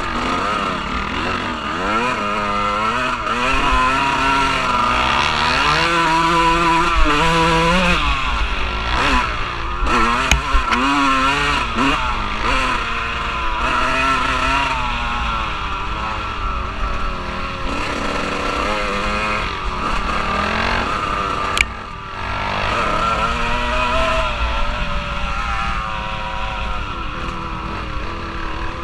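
Off-road vehicle engine being ridden hard, its revs rising and falling again and again, with wind rumbling on the microphone. The engine dips briefly about three quarters of the way through before picking up again.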